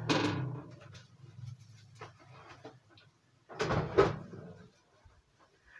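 Electric oven's fan hum dying away just after the oven is switched off. About three and a half seconds in comes a brief clatter ending in a sharp knock.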